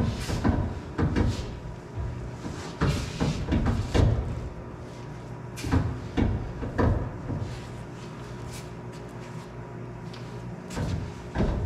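Cloth towel rubbed by hand over a car's painted trunk lid to wipe off polish: a run of irregular swishing strokes that thin out in the second half.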